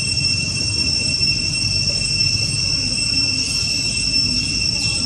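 Steady, high-pitched insect drone, typical of cicadas, holding an unchanging shrill tone with a higher overtone, over a low rumble.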